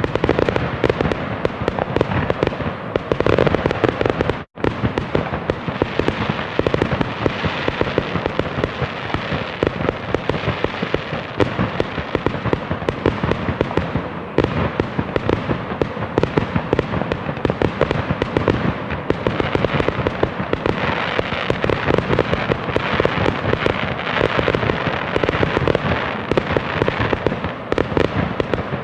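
Fireworks going off without pause: a dense, continuous barrage of bangs, pops and crackling. The sound cuts out for a split second about four and a half seconds in.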